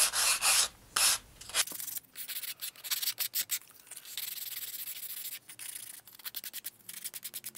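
Sandpaper wrapped around a model rocket body tube, rubbed by hand back and forth against a small canopy part. The first second and a half are quick, full strokes; after that come lighter, shorter scratching strokes.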